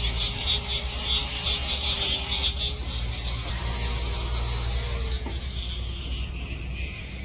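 Motor-driven rotisserie of an automatic charcoal grill turning, a fast mechanical clicking and rattling over a steady low motor hum; the clicking fades after about two and a half seconds.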